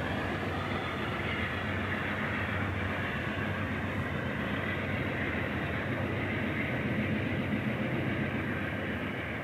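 Amtrak bilevel passenger cars rolling past on the rails and pulling away, a steady, continuous noise of steel wheels on track.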